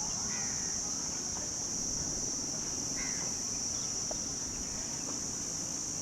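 Steady, high-pitched drone of insects, with two short bird chirps, one about half a second in and one about three seconds in.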